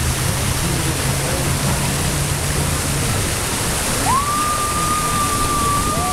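Steady rush of falling and splashing water in a water-park pool. About four seconds in, a single clear high tone comes in, holds steady, then drops lower near the end.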